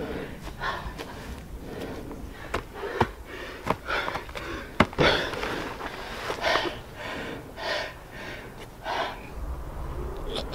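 A man panting and gasping for breath after running, a ragged breath every half-second to second. A few sharp footfalls in the first half.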